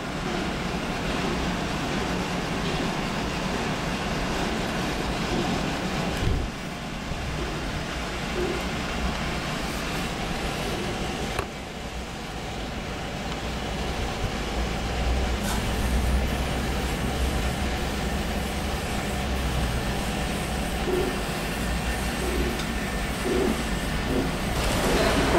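Steady rumble of road traffic crawling in gridlock, with a low engine hum.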